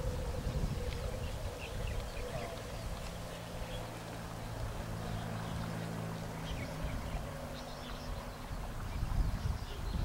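Remote-controlled model boat's motor giving a steady low hum for a few seconds in the middle, with faint bird chirps around it.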